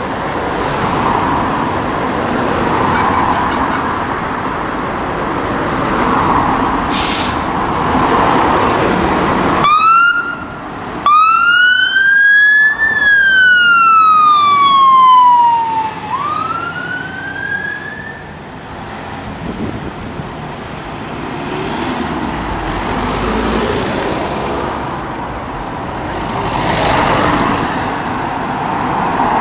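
Scania 94D fire engine pulling out with its diesel engine running. About ten seconds in its siren gives a short rising whoop, then a wail that climbs, falls slowly over about three seconds and climbs again before it cuts off. Engine and road noise carry on as it drives away.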